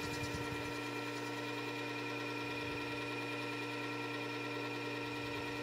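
Work Sharp benchtop sharpener running with a steady motor hum, its spinning abrasive disc grinding a steel chisel's bevel held at 30 degrees, giving a continuous grinding hiss.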